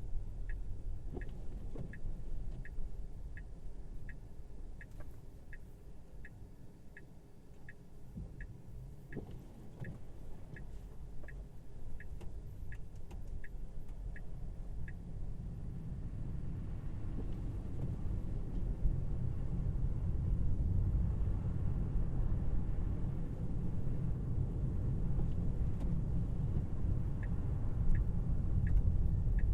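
Inside a Tesla Model Y's cabin while driving on a snowy road: steady low tyre and road rumble that grows louder about halfway through as the car speeds up. Over it the turn-signal indicator ticks about one and a half times a second, stops about halfway, and starts again near the end.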